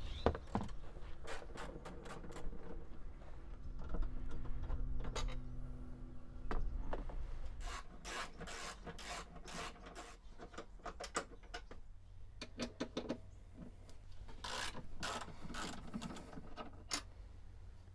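A 7/16-inch socket tool loosening the bolts that hold a van seat to its pedestal: irregular runs of metal clicking and scraping.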